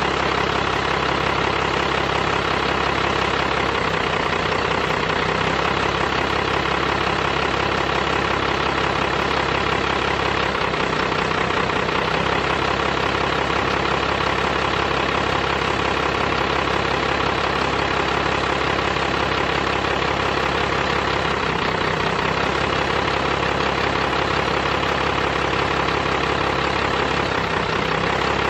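12-valve Cummins inline-six diesel idling steadily, with an even low pulse, and brief low rumbles now and then.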